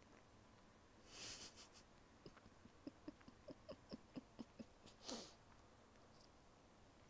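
Close-miked mouth sounds of chewing a soft, chewy mochi-like sweet into an earphone microphone: a breathy rush about a second in, then about ten wet clicks and smacks of chewing, then another breathy puff.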